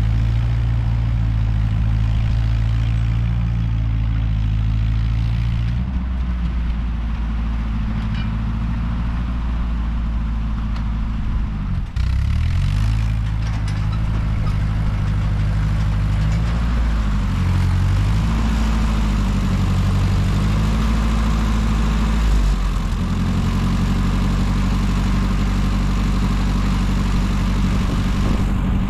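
Ford 8N tractor's four-cylinder engine running steadily while it pulls a two-bottom plow through the ground. Its pitch dips briefly about twelve seconds in, then falls and rises several times a little later as the engine speed changes.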